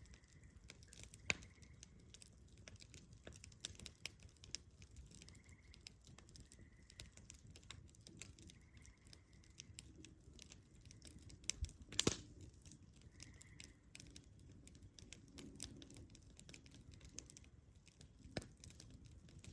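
Wood fire crackling quietly: a scatter of small crackles with a few sharper pops, the loudest about twelve seconds in.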